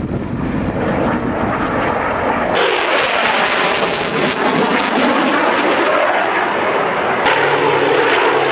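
Propeller airplane engine running loudly, a steady drone and rush of noise that changes abruptly about two and a half seconds in and again near the end.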